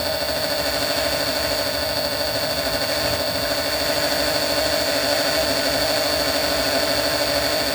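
Metal-turning lathe running steadily while a small grub screw is turned to a dog point: an even motor hum with a steady high whine.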